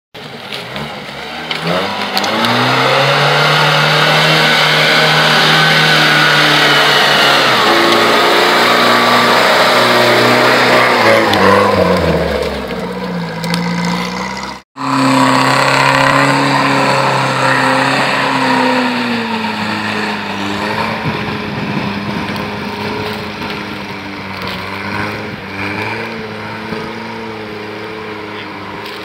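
Off-road 4x4 engines revving hard under load, the pitch climbing and falling as the throttle is worked and the wheels churn through mud and leaves. About halfway in the sound breaks off sharply, and a second engine takes over, straining and easing.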